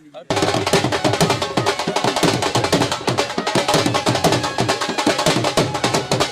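Drums played in a fast, dense rhythm of sharp strikes, after a brief break right at the start.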